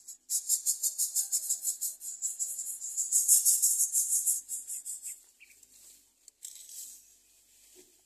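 Greater coucal nestlings begging for food: a rapid run of raspy, high hissing pulses, loudest about three to four seconds in as they gape at the parent. The pulses fade after about five seconds, with one more short burst near the end.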